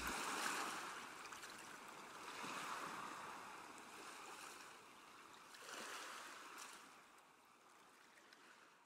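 Faint ocean waves washing in, a soft rushing that swells and recedes about three times, then fades out near the end.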